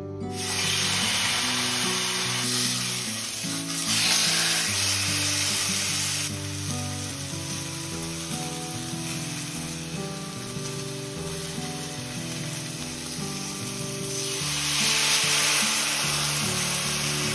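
Chicken breast sizzling as it sears in a hot frying pan, a steady hiss over soft background music. Near the end the sizzle swells as white wine is poured into the hot pan.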